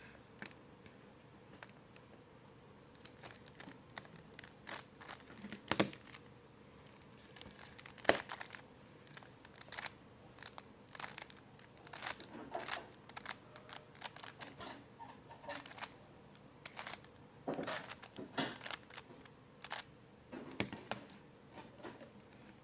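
Plastic Rubik's cube layers being turned by hand: irregular clicking and clacking, in quick runs with short pauses, the loudest clacks about six and eight seconds in.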